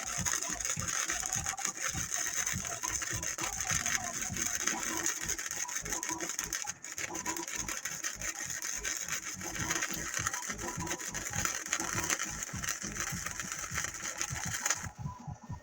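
Wire-feed (MIG) welding arc crackling and sizzling steadily as a bead is run, with a brief break about seven seconds in, then cutting off suddenly near the end.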